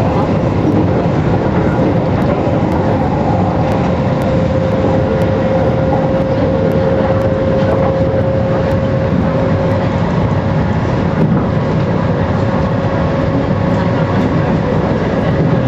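Interior running noise of an MTR East Rail Line Metro-Cammell (MLR) electric multiple unit travelling at speed: a steady rumble of wheels on rails with a steady whine over it.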